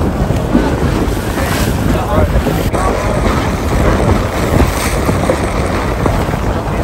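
Strong gusty wind buffeting the microphone as a steady low rumble, over choppy harbour water slapping against the hulls.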